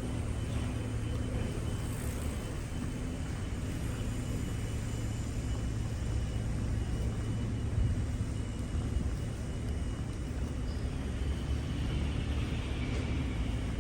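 Steady low engine rumble with a faint, even hum over it.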